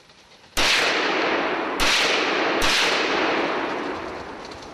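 Three gunshots from hunting guns in quick succession, the first about half a second in and the next two a little over a second apart. Each rings out in a long echo through the forest that fades over a couple of seconds.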